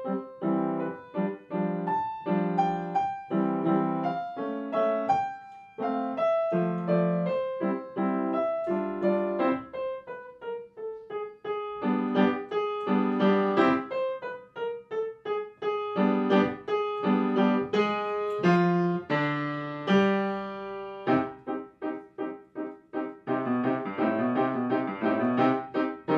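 Piano music: a tune over repeated, quickly struck chords.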